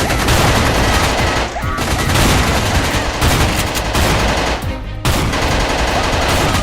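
Rapid, continuous automatic gunfire sound effects laid over a Nerf battle, with background music; the firing breaks briefly twice.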